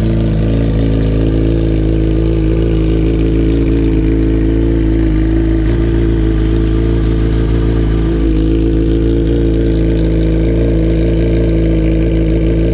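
2004 Yamaha R1's inline-four engine idling steadily with the oil freshly changed.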